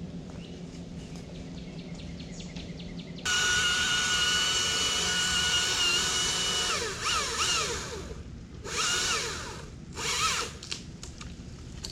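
Battery-powered chainsaw starting about three seconds in with a steady high whine at full speed. Its pitch dips and wavers as it cuts, then it is run in two short bursts near the end.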